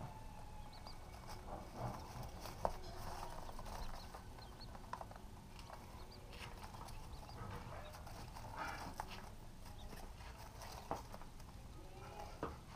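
Quail chicks moving over shredded paper: soft rustling and scattered light taps and clicks, with a few faint, short, high peeps.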